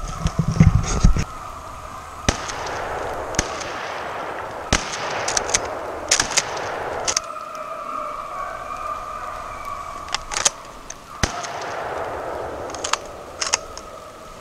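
A pack of deer hounds baying on a chase, their long held cries overlapping into a steady chorus. Sharp knocks, clicks and bursts of rustling sound close by, from gear being handled and brush moving against the microphone.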